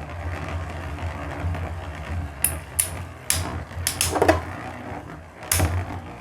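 Two spinning battle tops (Tornado Destroyer and Tornado Leone) whirring steadily in a stadium, in a stamina battle that is still undecided. They clack against each other about six times, mostly in the second half.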